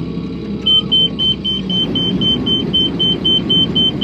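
A combine's electronic cab warning beeper sounding rapidly, about four beeps a second, starting about a second in, over the steady rumble of the running combine.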